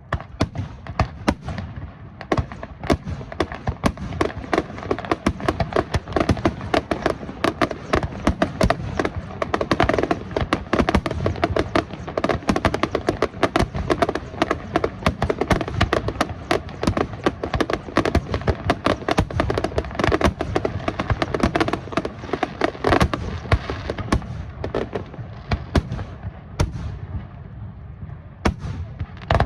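Fireworks display going off in rapid, near-continuous bangs and crackles, with a steady rumble underneath.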